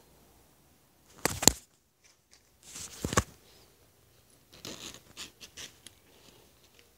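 A hoodie being handled and its side half-zip worked by hand: two loud scratchy rasps about a second and three seconds in, then a run of quieter short scratchy strokes as the zipper pull is slid along.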